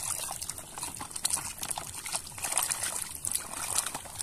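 Muddy water sloshing and trickling in a plastic basin as a hand swishes toys around in it, with many small, irregular splashes.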